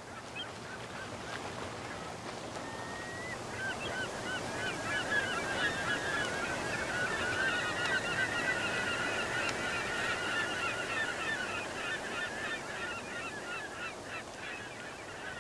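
A flock of gulls calling, many short rising-and-falling cries overlapping, sparse at first and thick from about four seconds in, over the steady wash of surf.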